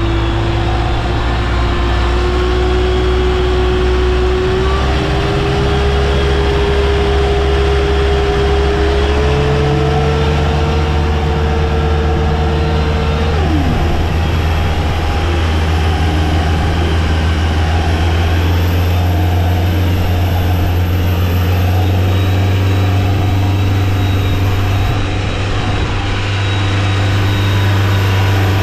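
Boat's inboard engine running steadily at raised revs, about 3,000 RPM, heard through the open engine hatch, as a check for leaks and loose parts after a service. A whine climbs in small steps over the first half, then drops away.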